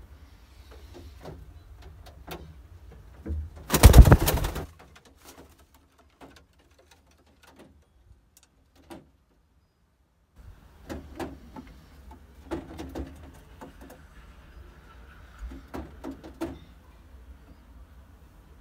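Young homing pigeons cooing softly, a few short calls in the second half. About four seconds in there is a loud, brief rustling burst, followed by a nearly silent stretch of several seconds.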